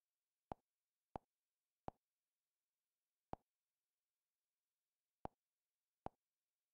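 Google TV interface navigation sounds: six short, soft clicks at uneven spacing, one each time the menu focus moves.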